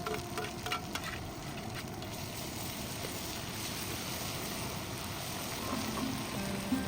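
Food sizzling in a hot pan: a steady frying hiss.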